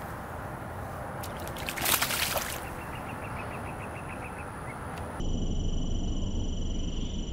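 A released fish splashes back into the pond once, about two seconds in, over steady outdoor background noise.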